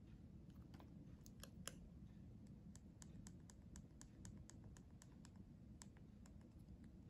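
Faint clicks of a Garmin Edge 530 bike computer's side buttons being pressed: a few single presses, then a quick regular run of about four or five clicks a second as a value is stepped up one press at a time.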